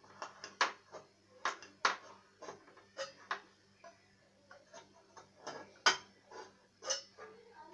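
A knife tip jabbing and scraping at the metal lid of a tin to widen a slot cut in it. The sound is a series of irregular sharp clicks and scrapes, the loudest about six seconds in.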